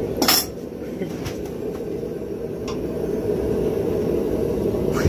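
Steel blacksmith tongs clink sharply once as they are picked up off the workbench. Under them runs a steady low roar of workshop machinery, with a couple of faint ticks later on.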